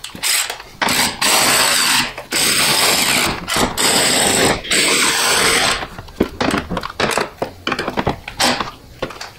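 Cordless electric ratchet running in several bursts of one to two seconds, driving down bolts. Near the end it gives way to a string of shorter clicks and knocks.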